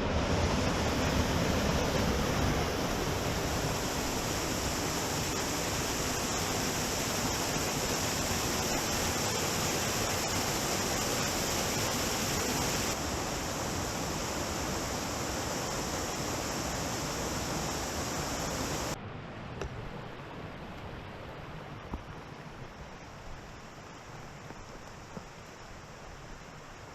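Waterfall rushing: a steady, loud noise of falling water that drops abruptly to a quieter level about 13 seconds in and again about 19 seconds in.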